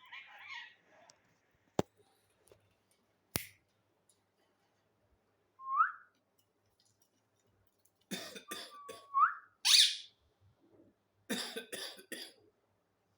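Parrot mimicking human coughing: clusters of short cough bursts in the second half, with a short rising whistle about six seconds in and another amid the coughs. A few sharp clicks come earlier.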